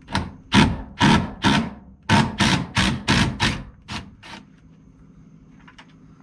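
Small cordless impact driver run in about ten quick, short bursts, backing out a rust-seized door hinge screw that has just broken loose. The bursts stop about four and a half seconds in.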